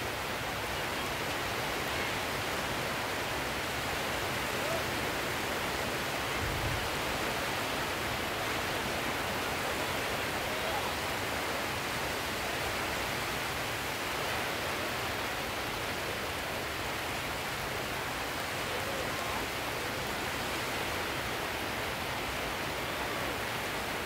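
Sea surf as a steady, even rushing noise, with no rise and fall of single waves and no music.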